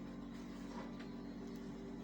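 A low steady hum with a few faint clicks about a second in and again a little later.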